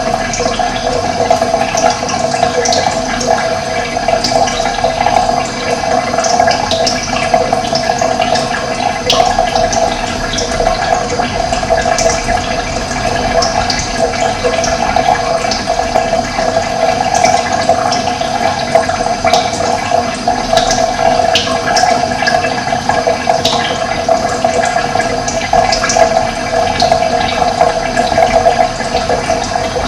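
Running water, such as a stream or small cascade, flowing steadily with a constant splashing rush.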